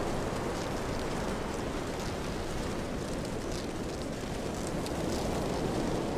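Steady wind blowing across the microphone, with surf breaking on a beach.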